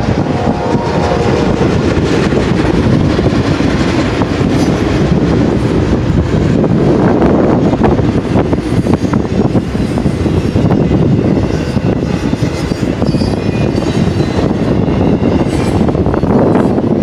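Double-stack intermodal well cars rolling past on steel wheels: a steady, loud rumble of wheels on rail with a constant fine clatter.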